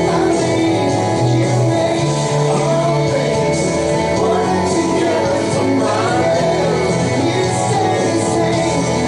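Live worship band playing, with guitar and sung vocals, in a large room.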